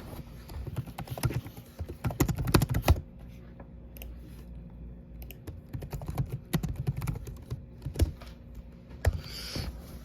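A rapid, irregular run of small clicks and taps, like keys being typed, coming in clusters about a second in and again past the middle, over a low steady hum.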